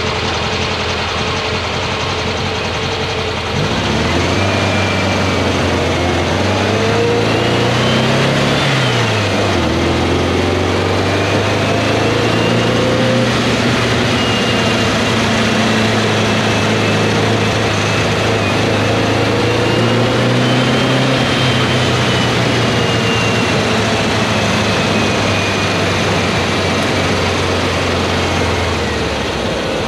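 VW Beetle's air-cooled flat-four engine pulling the car along the road on a test drive, its carburetor freshly cleaned and its main jet leaned out from a 175 to a 135 to cure rough running. The engine note climbs for a few seconds, drops suddenly, then holds steady under constant road and wind noise.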